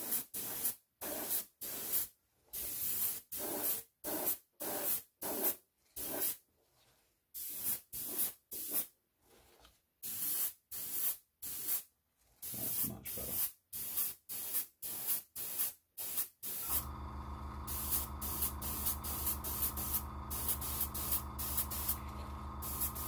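An airbrush spraying paint in quick short hissing spurts, about two to three a second with brief pauses, as the trigger is pulled and released. A steady low hum comes in underneath about 17 seconds in.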